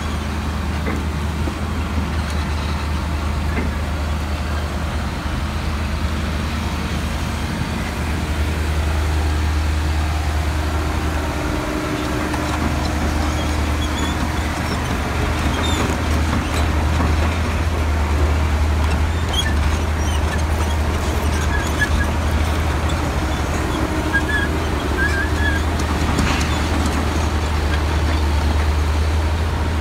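Diesel engine of a John Deere tracked excavator running steadily as it works the grapple holding a scrapped car.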